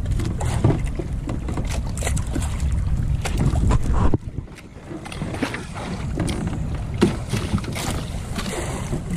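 Small fishing boat's engine running with a steady low rumble while a longline is being set, with scattered knocks and wind on the microphone. The rumble drops away for about half a second just after four seconds in, then comes back.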